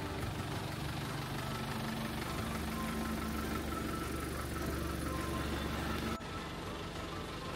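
School minibus engine idling, a steady low hum that drops suddenly in level about six seconds in.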